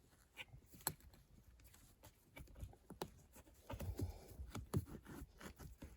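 Hands working a protective mat into place around a car's gear-lever console: rustling handling with scattered light clicks and taps, busiest in the second half.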